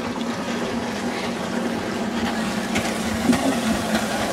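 Steady low hum with water sloshing against a fishing boat's hull.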